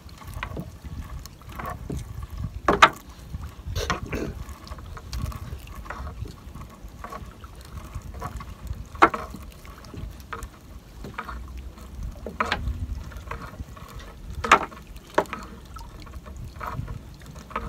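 Gill net being pulled by hand over the gunwale of a small fishing boat: irregular sharp knocks and clatter of the net and hands against the hull, over a steady low rumble.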